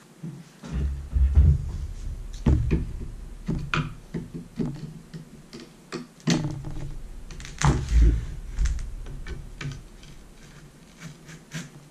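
Pliers pulling old staples out of a wooden canoe seat frame: a run of sharp clicks and snaps, with heavier thumps as the wooden frame knocks on the tabletop, the biggest about one and a half and eight seconds in.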